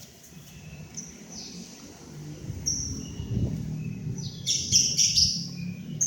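A bird chirping in short high calls a second or so apart, with a louder run of chirps about four and a half seconds in, over a low rumble.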